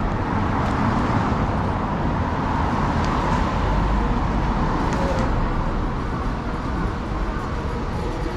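Street traffic: a steady rumble of road vehicles, with one vehicle going by close, swelling and fading over the first few seconds.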